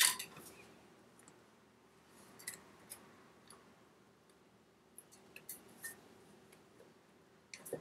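Scattered light metallic clicks and taps of engine parts being handled during a top-end rebuild, with a sharper click right at the start.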